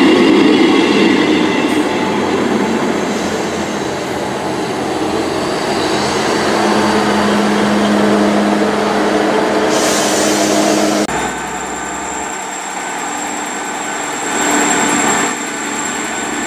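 Class 158 diesel multiple unit arriving at a station platform: train noise that is loudest at the start, with a steady low engine note building in the middle. About eleven seconds in the sound changes abruptly to a quieter, steadier running sound with a thin high whine.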